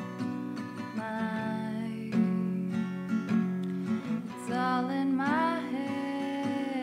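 Background song led by strummed acoustic guitar, with a voice singing.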